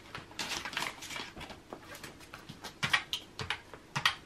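Paper banknotes and plastic binder pockets rustling as cash is handled. Then a run of sharp clicks from a desk calculator's round plastic keys being pressed, clustered near the end.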